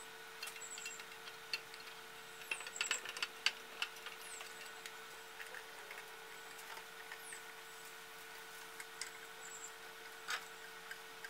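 Light clicks and knocks of the edger's motor housing being handled and seated onto its base, with a busy cluster a few seconds in and another near the end, over a faint steady hum.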